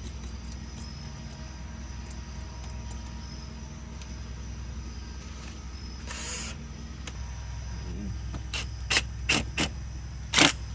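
Honda B-series engine idling with a steady low hum. A short hiss comes about six seconds in, and a run of five sharp, loud clicks or knocks follows near the end.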